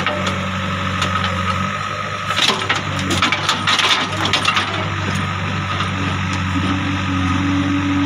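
JCB 3DX backhoe's diesel engine running steadily while the bucket digs in the pit. From about two and a half to four and a half seconds in there is a burst of crunching and crackling as soil and stones scrape against the bucket. A steady whine joins the engine near the end.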